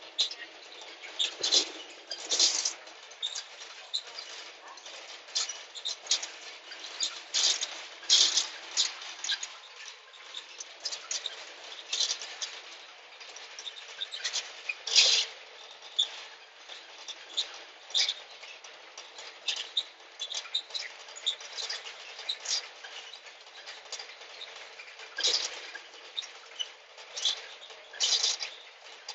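Irregular clicks, taps and light rattles, several a second and uneven, over a faint steady hiss; a few louder knocks stand out, about a second and a half in, mid-way, and near the end.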